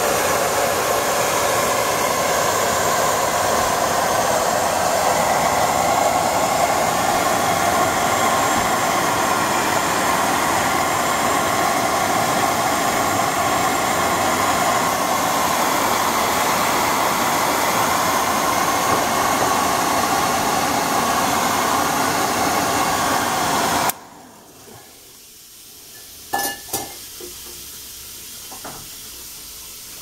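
Vidal Sassoon hand-held hair dryer running steadily, blowing hot air onto frosted refrigerator evaporator coils to melt the ice. It cuts off suddenly about six seconds before the end, leaving a few light knocks.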